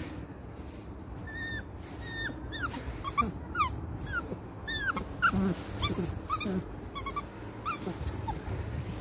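A three-month-old Jagdterrier puppy whimpering: a rapid string of short, high whines, many falling in pitch.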